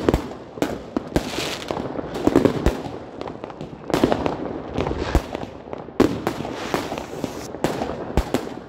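Fireworks going off all around: aerial rockets and shells bursting in rapid, irregular bangs of varying loudness and distance, over a continuous crackle.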